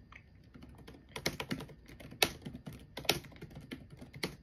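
Typing on a keyboard: a quick, uneven run of key clicks with a few harder strokes among them.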